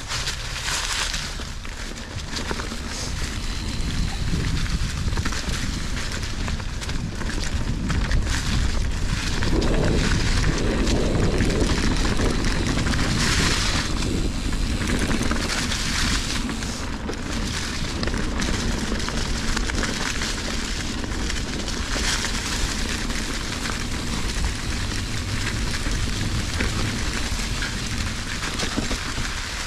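Fezzari Cascade Peak mountain bike rolling along a leaf-strewn, rocky trail: tyres crackling over dry leaves and stones and the bike rattling, over a steady rumble of wind on the camera's microphone.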